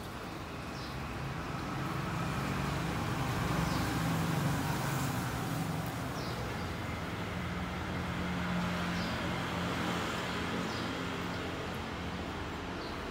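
A motor vehicle engine running steadily, its low hum swelling a few seconds in, with a few faint, short high chirps now and then.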